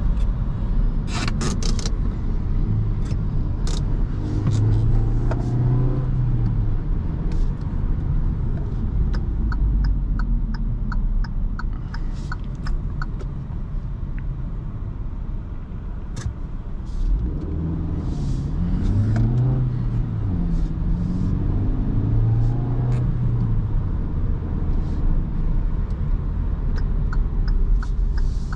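Kia Rio's 1.2-litre four-cylinder petrol engine heard from inside the cabin while driving, its pitch rising and falling several times as it speeds up and eases off, over steady road and tyre rumble.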